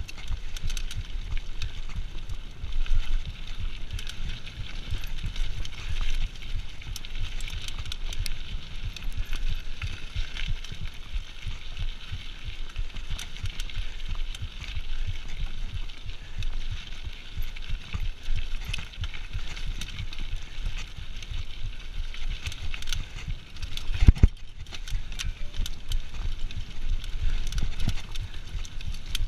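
A 2013 Giant Reign 2 mountain bike ridden fast down a dirt singletrack, heard from a chest-mounted camera: tyres crunching and hissing over the dirt, the frame and chain rattling over bumps, and wind buffeting the microphone. One sharp knock about 24 seconds in is the loudest sound.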